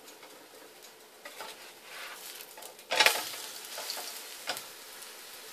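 Chickpea-flour omelette sizzling in hot oil in a nonstick frying pan. About three seconds in, a spatula turns it over with a sharp knock and scrape against the pan, followed by a few lighter clicks, and the sizzle is louder afterwards.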